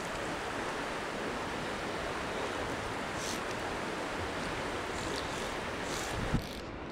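Steady rushing of river water, with a brief knock about six seconds in.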